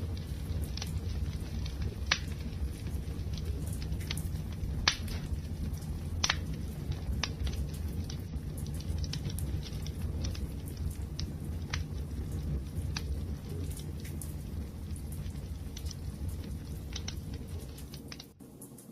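Wood fire burning: a steady low rumble with sharp, irregular crackles and pops about once a second. The sound dips briefly near the end.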